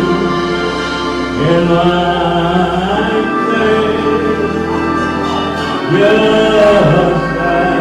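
Gospel music: voices sing long held, sliding notes over a steady low bass line from the church band or organ, with the bass note changing twice.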